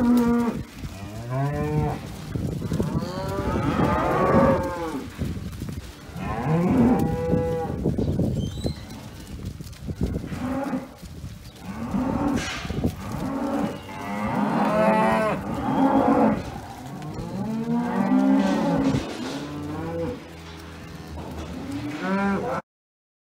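Herd of cows mooing again and again, often several calling at once, with low and higher-pitched moos that rise and fall. The sound stops abruptly near the end.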